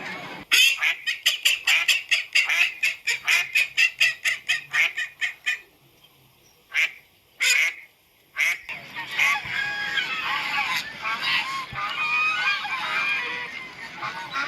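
Domestic geese and ducks calling. A fast run of loud calls comes at about five a second, then a near-silent pause broken by two short calls, then many birds chattering over one another.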